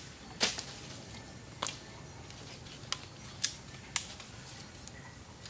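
Machete chopping into a sapling to cut off a branch: about five sharp strikes at irregular intervals.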